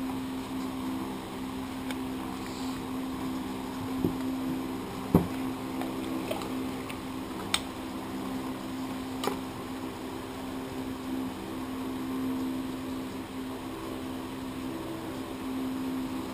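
A steady mechanical hum throughout, with a few short sharp clicks and knocks as a brake caliper housing is handled and brushed in a plastic tub of diesel.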